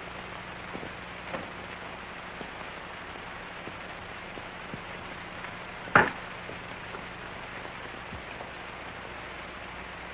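Steady hiss and crackle of an old film's soundtrack, with a few faint clicks and one sharp, loud pop about six seconds in.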